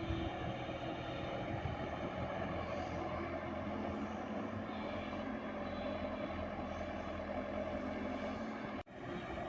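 JCB 120 excavator's diesel engine running steadily under work, a continuous drone that cuts out for an instant near the end.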